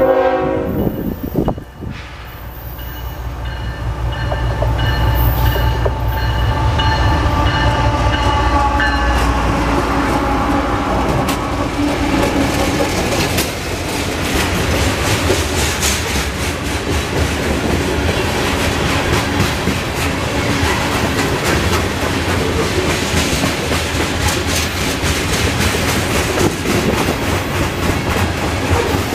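CSX freight train passing close. The horn's last blast cuts off about a second and a half in. The lead diesel-electric locomotives then rumble past with a high whine. From about twelve seconds in, covered hopper cars roll by with a steady clickety-clack of wheels over the rail joints.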